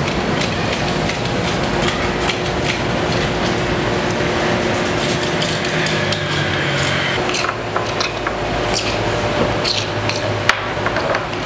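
Workshop ambience: a steady machine hum with many scattered taps and clicks from hand work at the benches, more frequent in the second half.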